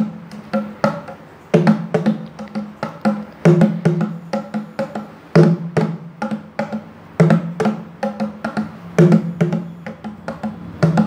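A pair of bongo drums played with bare hands in a simple repeating rhythm: quick sharp slaps and taps, with a deeper ringing stroke coming back about every two seconds.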